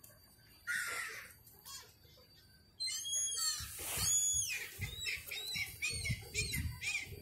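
Gull calling: one harsh call about a second in, then from about three seconds a quick run of loud, squawking calls, each rising and falling in pitch.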